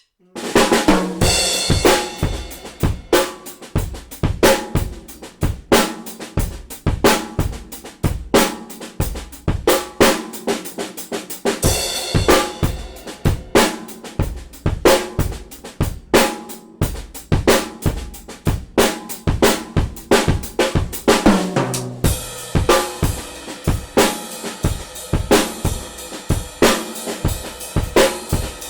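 Mapex Storm drum kit played in a steady groove of bass drum, snare, hi-hat and cymbals. There are tom fills that fall in pitch, one about a third of the way in and one just before the last quarter. After that the cymbals ring in a thicker wash.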